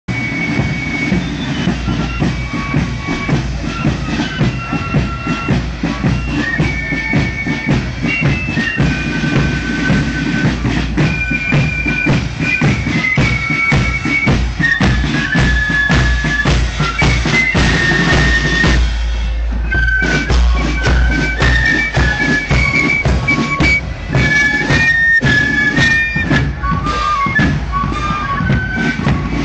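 Marching flute band playing as it parades past: a high flute melody over side drums and a heavy bass drum. The drumming breaks off briefly about two-thirds of the way through while the flutes play on.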